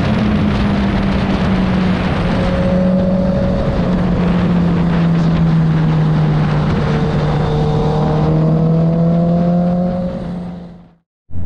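Honda CB650R's inline-four engine running at a steady highway cruise, heard from the rider's seat over a constant rush of wind and road noise, its note drifting slightly in pitch. About ten seconds in the sound fades out, and after a brief silence a lower engine note comes in.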